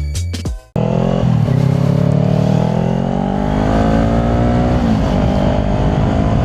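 Kawasaki Ninja 400 parallel-twin through a Yoshimura exhaust, pulling away under acceleration with its pitch rising steadily, easing off briefly about five seconds in, then running on steadily. Intro music cuts off just before the engine comes in.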